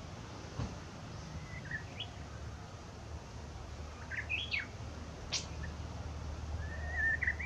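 Japanese bush warbler (uguisu) giving its early-spring practice song (guzeri): short, broken chirps and warbled phrases instead of the finished ho-hokekyo. A steady low rumble of background noise runs underneath.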